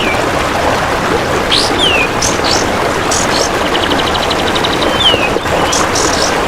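Kapas tembak bird calls: short chirps sliding quickly downward, repeated in a looped pattern, under a steady loud rushing hiss. A little past the middle comes a rapid train of buzzy pulses, about a dozen a second for just over a second, from the golden grasshopper.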